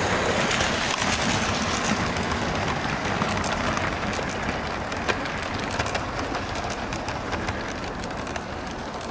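OO gauge model train (a Bachmann S&D 7F 2-8-0 steam locomotive hauling a rake of coaches) running along the track: a steady rolling rumble with many small clicks from the wheels on the rails. It fades gradually as the train moves away.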